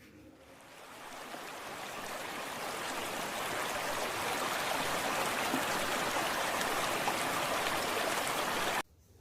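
Recording of a river: running water rushing steadily, fading in over the first few seconds and cutting off abruptly near the end.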